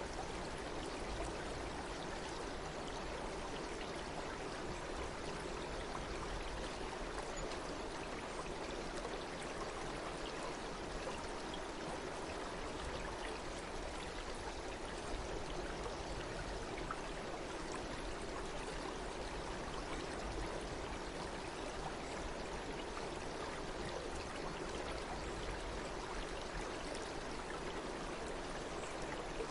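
Flowing water running steadily, an even rush with no breaks or distinct splashes.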